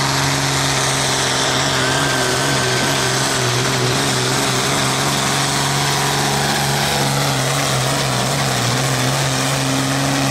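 Modified Massey Ferguson 1130 pulling tractor's engine running hard under load as it drags a weight-transfer sled down the track: a loud, steady engine note that holds without a break.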